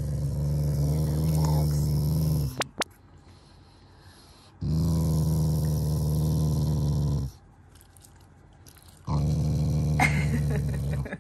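Black Shiba Inu growling low and steady in three long growls about two seconds apart, lips drawn back. It is a display of affection rather than anger: a dog that is not angry at all.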